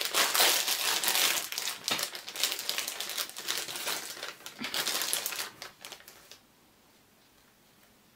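Foil blind-bag wrapper of a Funko Mystery Mini figure crinkling as it is pulled open by hand: a dense run of crackles that stops about six seconds in.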